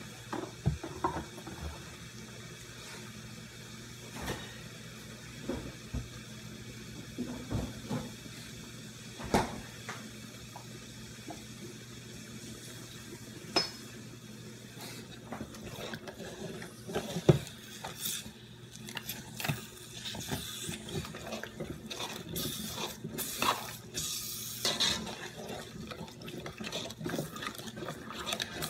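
Thick eggplant and vegetable stew bubbling in a large aluminium pot, with scattered pops and spits that come more often in the second half, over a steady low hum. Near the end a metal spoon stirs and scrapes against the pot.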